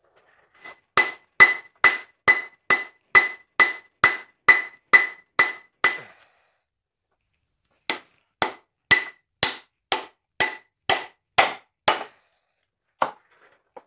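Hammer blows on steel, about two a second, each with a short metallic ring, driving the crankshaft out of a Copeland semi-hermetic compressor. A run of about a dozen blows, a pause of about two seconds, a run of about nine more, then one last blow near the end.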